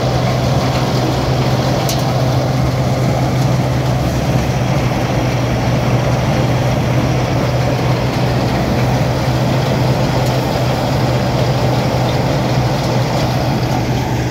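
New Holland tractor's diesel engine running steadily at a constant speed, a continuous low drone with no change in pitch.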